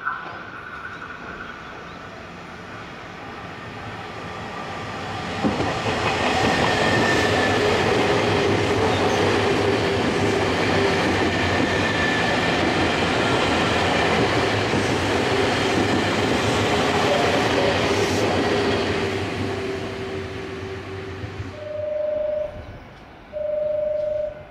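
Nankai Koya Line electric train going by at the station. The rumble and rail clatter build over the first few seconds, stay loud for about fourteen seconds, then fade. Two short steady beeps come near the end.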